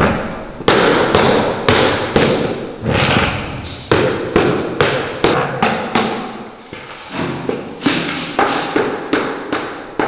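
Repeated dull knocks and thuds, two or three a second with a short lull about two-thirds of the way through, as hardened residue is knocked out of plastic buckets onto the floor.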